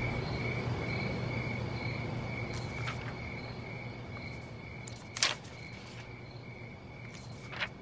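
Crickets chirping in steady rhythmic pulses, a night-time ambience bed. A low hum fades out over the first few seconds, and two short sharp clicks come about five seconds in and near the end.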